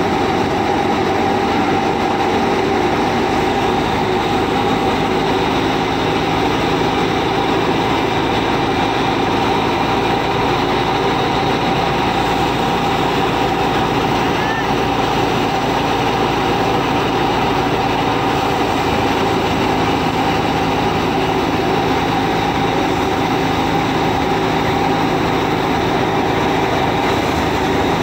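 Miniature model thresher running steadily: its small motor, belts and pulleys whir at an even pitch and level.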